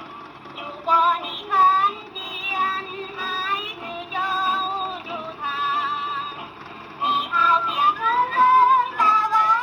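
Music with a voice singing, wavering in pitch, and a thin sound with almost no high end, like an old recording.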